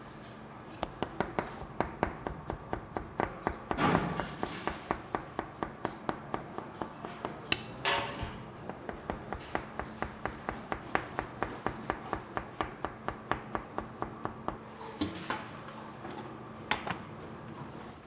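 Steady, even series of sharp taps or knocks, about three a second, like repeated strikes on a hard surface, with a couple of brief louder scraping noises between them.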